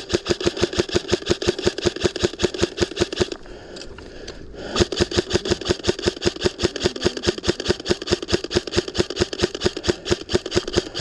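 Airsoft electric gun firing on full auto in two long bursts, about ten shots a second over the whir of the gearbox, with a pause of about a second and a half between them.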